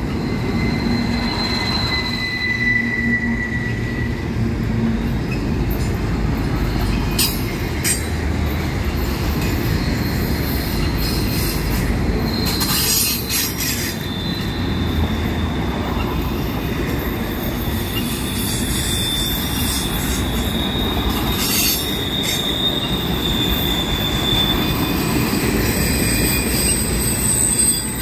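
Double-stack container well cars of a CSX freight train rolling past: a steady rumble of steel wheels on rail, with long high-pitched wheel squeals that come and go. A few sharp clanks stand out about 7, 8, 13 and 21 seconds in.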